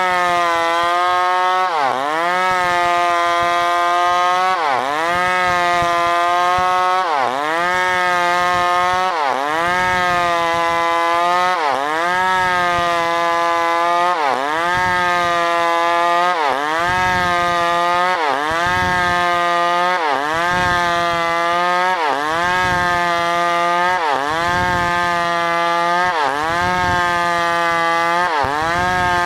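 New West PRO 888 two-stroke chainsaw running at high revs while sawing wood. Its pitch dips sharply and recovers about every two and a half seconds.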